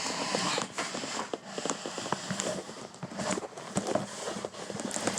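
Cardboard box and packaging being handled and moved, rustling with many scattered light knocks and clicks.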